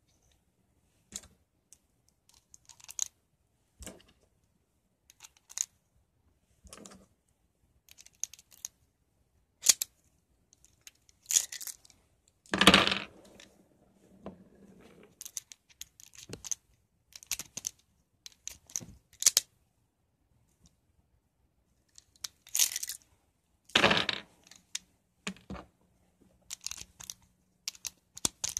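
Rock Island M206 .38 Special revolver being handled for reloading: scattered sharp metallic clicks of the cylinder and of cartridges going into and out of the chambers. Two louder clacks stand out, one near the middle and one toward the end.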